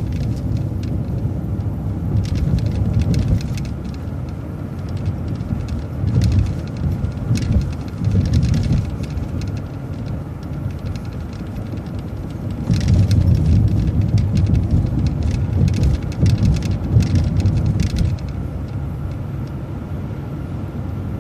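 Transit bus driving, heard from inside: a steady low engine and road rumble that grows louder for about five seconds past the middle, with light clicks and rattles throughout.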